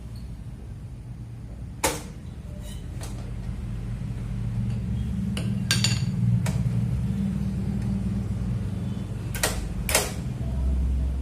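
A steady low hum that grows louder about four seconds in, with a handful of sharp clicks and knocks over it.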